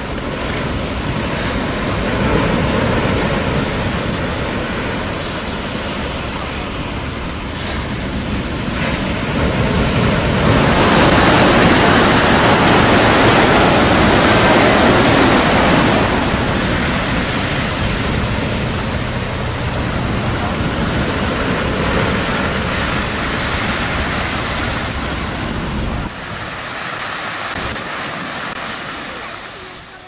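Strong wind blowing over a rough sea: a steady rushing of wind and surf. It grows louder for several seconds about a third of the way in, and its low rumble drops away near the end.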